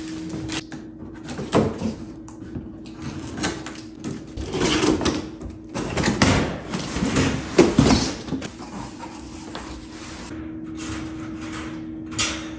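A folding wire dog crate being slid out of its cardboard box and unfolded: cardboard scraping and metal wire panels rattling and clanking in several irregular bursts, with a sharp clack near the end.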